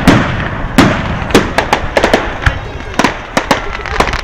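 Fireworks barrage going off in quick succession: sharp bangs and pops, several a second at uneven spacing, over a continuous hiss from the rising shots.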